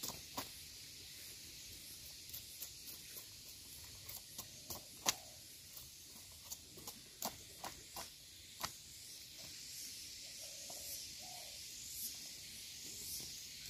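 Machete blade chopping and shaving the sheath off a raw bamboo shoot: a string of irregular sharp cuts, the loudest about five seconds in, thinning out over the last few seconds, over a steady high hiss.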